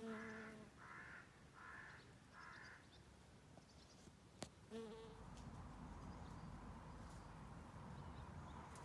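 Bumblebee's low buzz in flight, heard briefly at the start and again about five seconds in. Four short, harsh calls sound in the background early on, and there is one sharp click.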